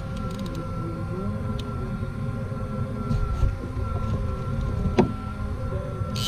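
Steady low rumble of wind buffeting the camera microphone on open water, with a faint steady high whine and one sharp click about five seconds in.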